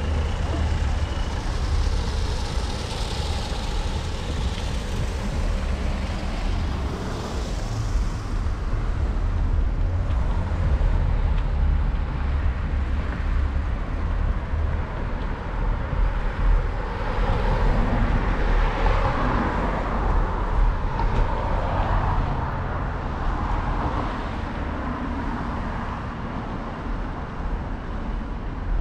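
City street traffic heard from a moving bicycle: cars passing over a steady low rumble, with a louder swell about two-thirds of the way in.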